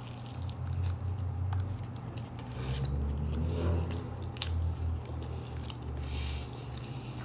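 Close-up chewing and biting of a flaky, cream-filled pastry: soft wet mouth sounds with small scattered crackles and smacks.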